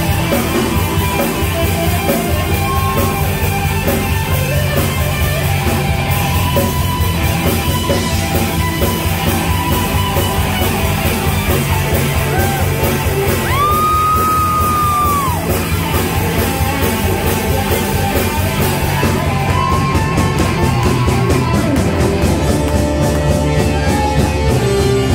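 Live band playing loud, with drum kit, bass, electric guitars, Hammond organ and horns; about halfway through, a lead instrument holds a single bent note for about two seconds.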